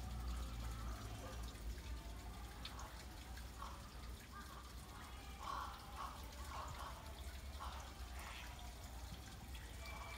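Water trickling and dripping into a pond, with irregular small splashes over a steady low rumble.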